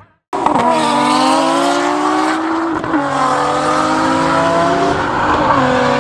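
Nissan GT-R engines accelerating hard on track, the pitch climbing steadily and dropping sharply at upshifts about three seconds in and again near the end.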